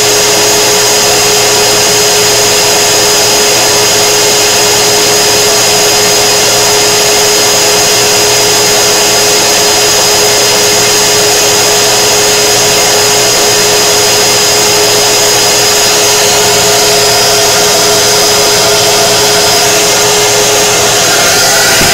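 K40 laser cutter's exhaust fan and air-assist pump running with a loud, steady whir and a constant hum tone, the laser head idle. Near the end the mix of tones shifts slightly.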